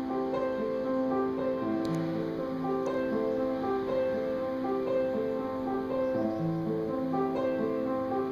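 Instrumental background music led by piano, with held, overlapping notes in a slow, repeating pattern.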